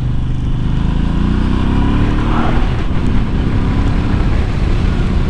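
Moto Guzzi V85 TT's air-cooled transverse V-twin pulling hard through a de-baffled Zard titanium slip-on silencer. The engine note rises for about two and a half seconds and then holds steady, with wind noise from riding at speed. The engine is still being run in and held to about half revs.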